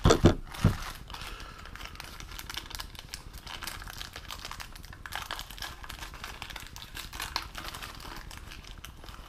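Two thumps in the first second as the wiper motor is set down on the table, then a small clear plastic parts bag crinkling and rustling in the hands as the switch is handled in it.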